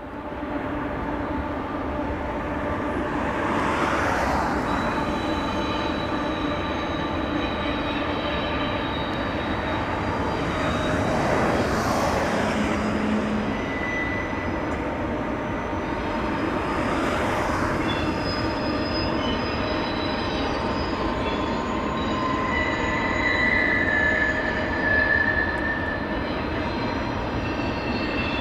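Double-stack intermodal freight train rolling steadily, with its wheels squealing on the canyon curves in several high, overlapping tones that come and go. Three broad whooshes swell and fade about 4, 12 and 17 seconds in.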